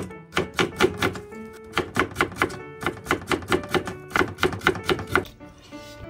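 Kitchen knife slicing Korean radish on a plastic cutting board: quick runs of crisp chops, about four a second, stopping shortly before the end. Light background music plays throughout.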